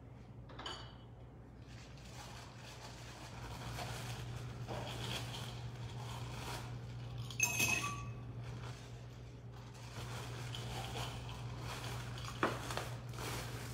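Plastic bag of ice rustling as ice is scooped out by hand, with a sharp clink about halfway through as ice hits the glass mixing pitcher. A steady low hum sits underneath.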